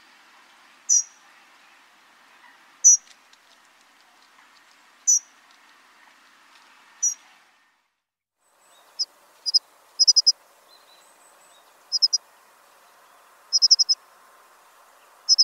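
Dunnock calling: thin, high single notes about every two seconds, then after a break of about a second, quick clusters of two to four high notes, over a faint background hiss.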